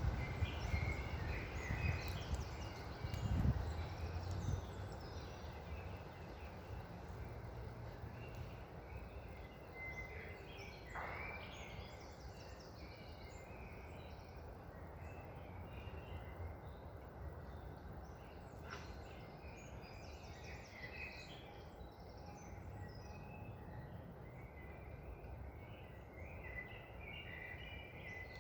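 Small birds chirping and twittering over a low wind rumble, with stronger gusts in the first few seconds. One longer call falls in pitch about a third of the way through.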